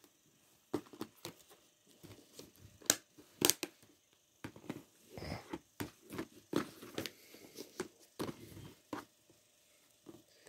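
Handling noise from a plastic Blu-ray case being handled and shut: a run of sharp plastic clicks and short rustles, the loudest clicks about three seconds in.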